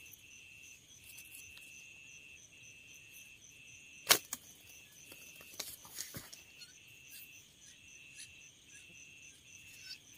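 Insects trilling in regular pulses, a little more than one a second. About four seconds in comes one loud, sharp snap: a homemade hunting slingshot loosing a stone at a roosting bird. A few faint clicks follow.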